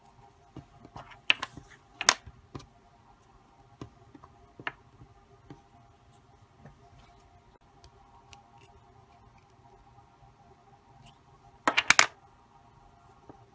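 Scattered light clicks and taps of hands handling Play-Doh and a small plastic Play-Doh mold, with a louder burst of knocks and rubbing near the end as a hand comes right up to the microphone.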